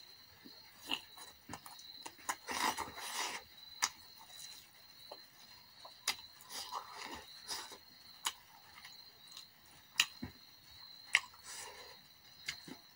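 Close-up eating sounds: chewing and mouth smacking on spiced chicken drumsticks, with scattered sharp clicks and short wet bursts. A faint steady high whine runs underneath.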